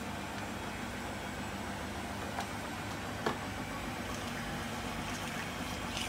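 A spoon stirring cream into a thick chicken sauce in a stainless steel frying pan, with two light clinks against the pan about two and a half and three and a quarter seconds in, over a steady hiss.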